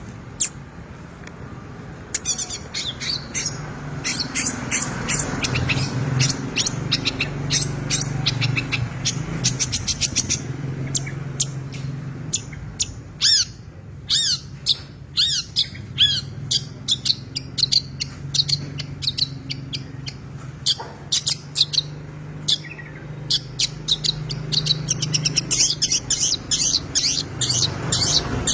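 Long-tailed shrike (cendet) singing a long, rapid run of chirps and whistled notes, its song full of phrases mimicked from other birds, over a steady low hum.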